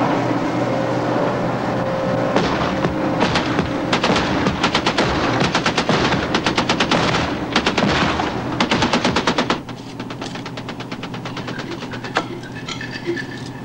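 Patrol boat's deck gun firing repeated bursts of shots over a steady engine drone. After about ten seconds the shots become quieter.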